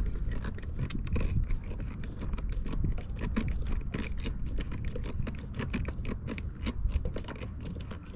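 A self-tapping screw, dabbed with silicone sealant, being turned by hand with a screwdriver into fiberglass. There is a steady run of small scraping, crunching clicks as the threads cut in, with the screw worked in a turn and backed out a turn to keep it from snapping. A low, steady rumble runs underneath.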